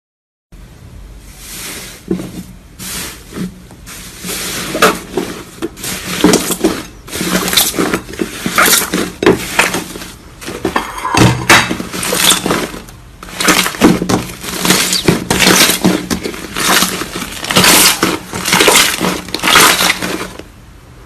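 Iceberg slime crackling and crunching as its hardened, crusty top layer is pressed and broken up, in repeated crackly bursts about one or two a second.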